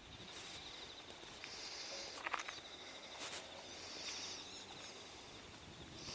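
Faint outdoor ambience: insects trilling steadily at a high pitch, with two sharp clicks a little after two and three seconds in.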